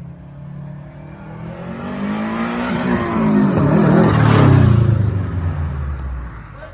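Turbocharged car engine accelerating as the car drives past, growing louder to a peak about four seconds in, its pitch shifting as it passes, then fading away.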